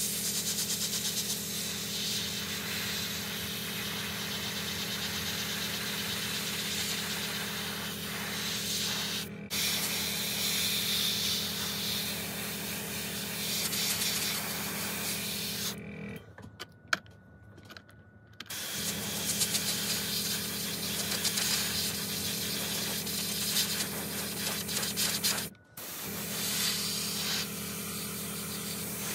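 Airbrush spraying paint: a steady hiss of air and paint over a steady low hum. It breaks off three times, twice for a moment and once for about two seconds in the middle.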